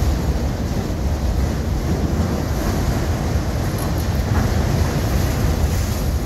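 Autorack cars of a manifest freight train rolling past at speed: a steady, deep rumble of wheels on rail with no separate clacks. Wind buffets the microphone.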